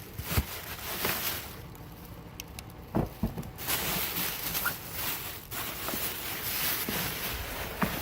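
Irregular rustling and scuffing with a few sharp knocks, the loudest about three seconds in: rummaging through bagged and boxed food waste in a dumpster.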